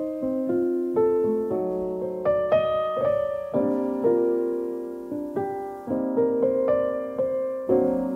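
Background piano music: single notes and chords struck about twice a second, each left to ring and fade.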